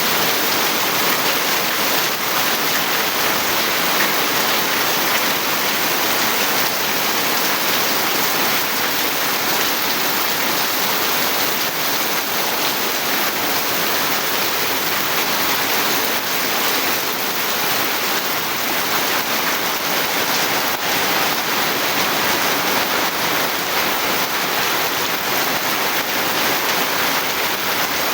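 Steady rain pouring down, a dense, even hiss with no breaks.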